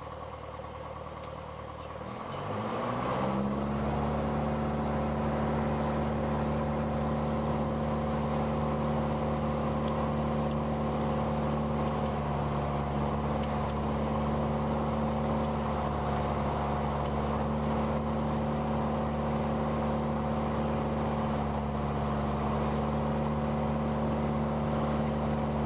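Piper Archer II's four-cylinder Lycoming engine and propeller, heard inside the cabin. About two seconds in it rises in pitch and level as the throttle is opened, then holds a steady, loud high-power run, and it begins to ease back right at the end.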